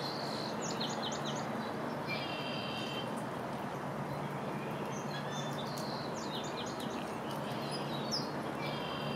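A songbird sings twice, each song a few short high notes followed by a buzzy trill, over a steady hiss of rain.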